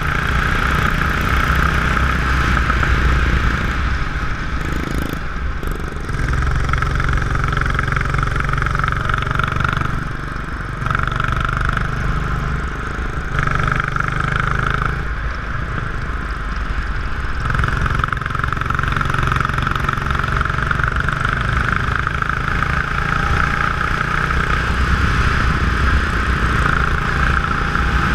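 Go-kart engine running hard, heard from on board the kart. The engine note drops back three times, briefly, and picks up again.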